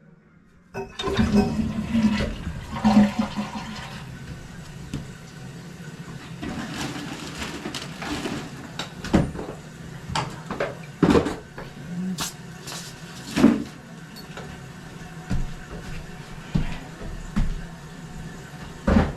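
Newly installed Gerber Viper toilet flushing: a loud rush of water starts about a second in, then the tank refills steadily. Several sharp knocks are heard along the way.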